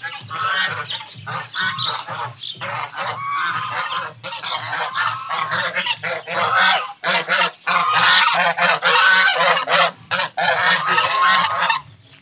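A flock of farm geese honking loudly, many birds calling over one another without a break.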